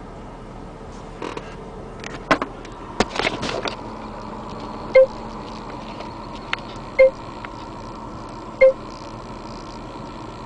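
A few seconds of clicks and handling knocks, then three short electronic beeps about two seconds apart, with a faint steady electronic hum behind them.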